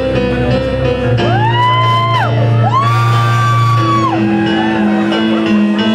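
Live band playing: a singer holds two long high notes, each sliding up into it and falling away at the end, over sustained keyboard chords, bass and drums.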